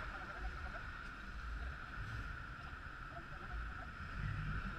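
Muffled low rumble of idling traffic with a steady hiss, picked up through the camera's waterproof housing.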